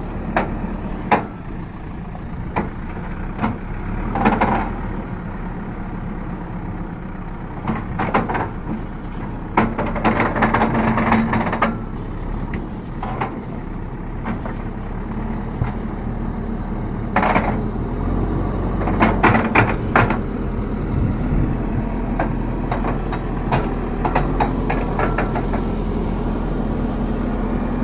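JCB backhoe loader's diesel engine running steadily while it tows a truck, with intermittent metallic clanks and knocks, in clusters about 4 s in, from 8 to 12 s, and around 17 to 20 s.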